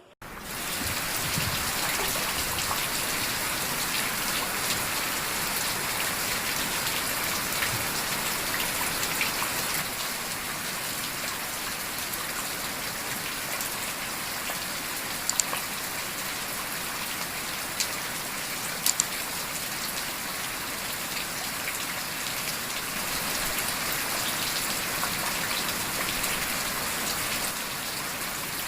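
Heavy rain falling steadily, an even hiss of drops, with a few brief sharp clicks around the middle.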